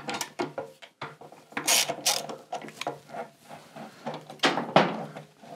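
Motorcycle lift being raised, a run of ratchet-like clicks and metallic clanks at uneven spacing.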